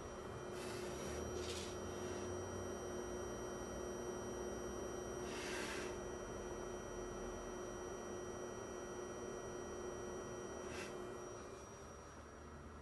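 Coil whine from a Fengmi Cinema Pro 4K laser projector: steady high-pitched whining tones over a lower steady hum, louder while the microphone is close to its vent grille. The lower hum fades out near the end. A few brief rustles are heard. The whine is loud enough to be heard through quiet film scenes.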